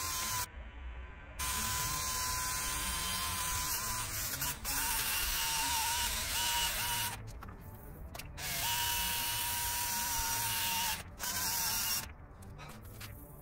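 Small electric power tool motor, like a drill, running with a steady whine and hiss. It stops and starts again several times, then cuts off about a second before the end.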